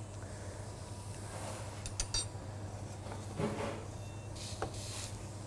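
Light metallic clinks of utensils against pans, a quick cluster of them about two seconds in, over a steady low hum. Near the end comes a brief sizzling hiss from squash slices on the hot grill pan.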